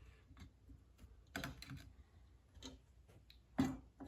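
Scattered light clicks and taps from hands handling the parts of a benchtop sander, with a short cluster about a second and a half in and the loudest knock near the end.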